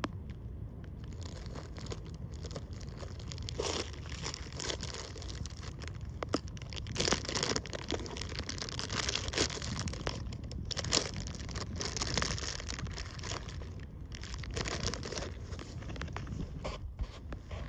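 Irregular crinkling and crackling rustle close to the microphone, with a low wind rumble underneath throughout.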